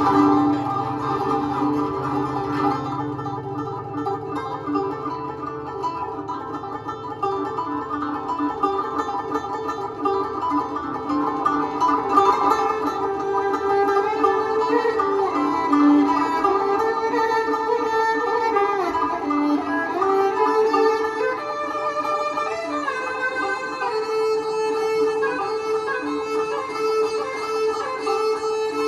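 Live band music led by a plucked guzheng and a bowed Chinese fiddle, the fiddle line sliding between notes. A low bass line sounds under them for the first few seconds and then drops away.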